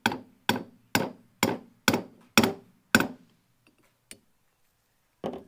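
Hammer striking a seal installer tool, driving an oil seal into the bearing carrier of a Mercury 225 Optimax outboard's lower unit: seven sharp knocks about two a second, then a pause and one more knock near the end. The seal has not yet bottomed out.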